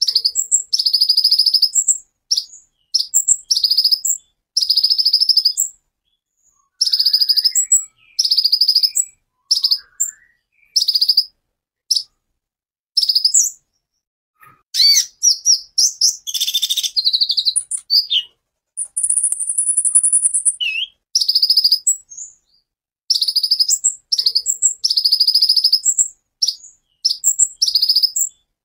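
Male kolibri ninja (Van Hasselt's sunbird) singing in full voice: a long run of rapid, high, buzzy trill phrases about a second each, separated by short pauses. About two-thirds of the way through comes a thinner, higher trill held for over a second.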